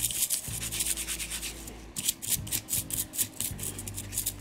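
A wet toothbrush scrubbing a clock wheel and its lantern pinion in cleaning solution: a quick run of rough brushing strokes, with a short pause a little before halfway.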